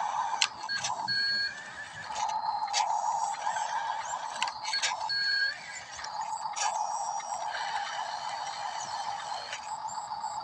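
Small electric motors of a radio-controlled model backhoe whining in on-off stretches of a few seconds, with clicks and brief high steady tones.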